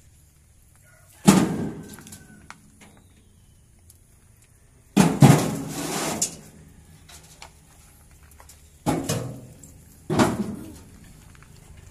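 Pressed concrete bricks knocking heavily against each other as they are handled and stacked: a clunk about a second in, a longer clatter around the middle, and two more clunks near the end.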